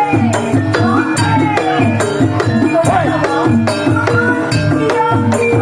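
Music with a steady beat of drums and jingling percussion, under a sliding melody line.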